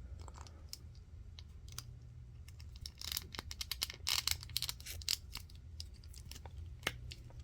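Small plastic clicks and scrapes from handling a 1/12-scale action figure while a piece of its armor is worked off over the shoulders, with a denser run of sharper clicks about three to five seconds in. A low steady hum sits underneath.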